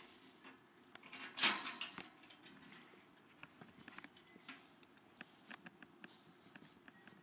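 Handling noise from a laptop being carried through a garden. One loud rustle lasts about half a second, starting roughly a second and a half in, followed by faint scattered clicks and knocks.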